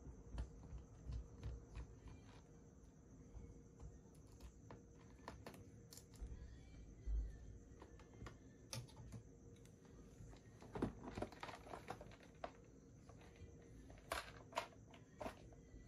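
Faint, irregular small clicks and taps of a Phillips screwdriver and fingers on the open laptop's chassis as screws are driven in, with clusters of clicks about eleven seconds in and near the end.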